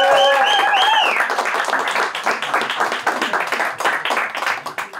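Small club audience applauding a comedian onto the stage, with a few whoops in the first second; the clapping thins out and dies away near the end.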